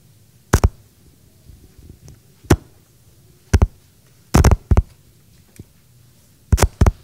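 A series of sharp thumps and knocks at irregular spacing, some in quick pairs, from a man's footsteps and handling as he moves, heard over a low room hum.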